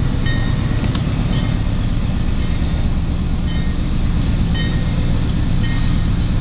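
Steady low engine rumble heard from inside a car, with a level-crossing warning bell ringing faintly about once a second.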